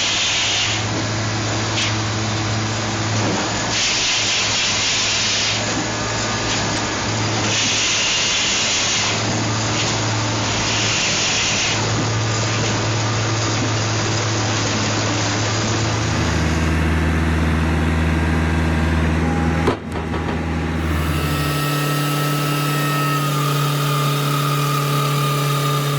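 Engine-driven firewood processing machinery running steadily, a continuous engine hum with bursts of higher, hissing noise in the first half. The engine sound changes abruptly about two-thirds of the way through and again shortly after, with a sharp click between.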